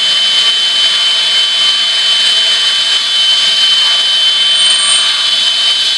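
Cordless drill running steadily on its high-speed setting, its bent, dull bit boring into the sheet-steel wall of a barrel stove, with a steady high whine throughout.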